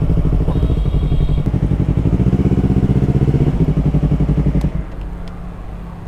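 Yamaha R3's parallel-twin engine idling with an even, steady pulse, then cutting off suddenly about five seconds in, as when the rider switches it off on arrival.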